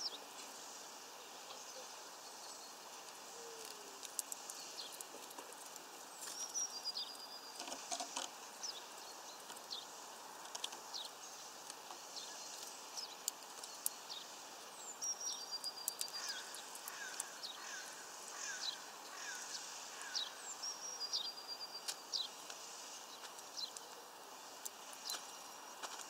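Eurasian bullfinch and European greenfinch pecking at sunflower seeds on a wooden feeder perch: irregular sharp clicks and taps. A short high bird call sounds three times, over a steady outdoor hiss.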